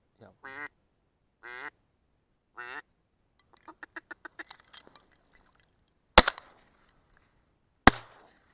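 Ducks quacking, a few drawn-out quacks followed by a quick run of short ones, then two shotgun shots under two seconds apart, the shots by far the loudest.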